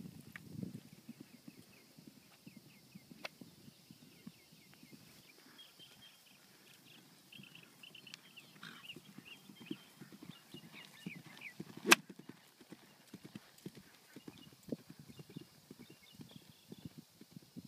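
A horse's hooves thudding faintly and irregularly on turf, with birds chirping in the background and one sharp click about twelve seconds in.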